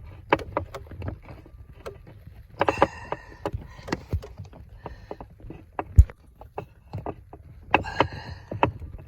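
A hand tool clicking, knocking and scraping against the blower motor and its plastic housing while the last fastener is worked loose. There are irregular clicks throughout, short scraping rustles about three seconds and eight seconds in, and one sharp knock about six seconds in.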